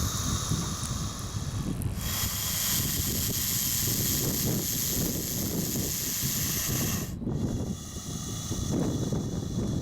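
Bullsnake giving a loud defensive hiss, air forced out of its lungs in a long exhale of about five seconds that cuts off sharply, a sound much like a rattlesnake's warning. Wind rumbles on the microphone underneath.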